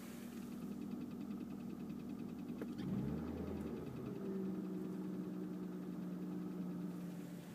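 BMW E36 328i's 2.8-litre straight-six idling with a light, fast ticking that the owner cannot place and guesses is the fan. About three seconds in the idle dips, flares up, then settles at a slightly lower speed.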